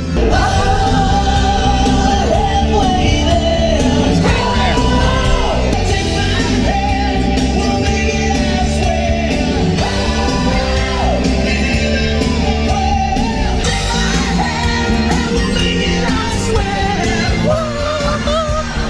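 Rock music with a sung lead vocal, playing without a break.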